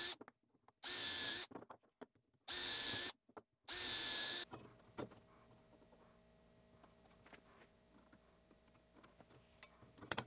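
Cordless drill boring holes through a melamine-faced chipboard block in short bursts: the end of one and three more of under a second each, its motor whine high and steady. After that only faint clicks and scrapes of handling.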